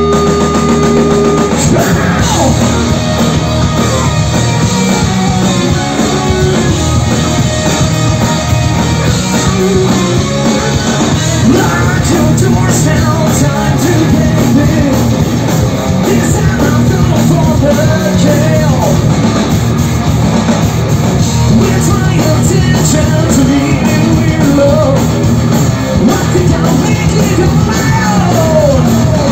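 Hard rock band playing live: distorted electric guitars, bass and drums, loud and continuous, with lead vocals over it in the later part. A held chord rings for about the first second and a half before the full band comes in.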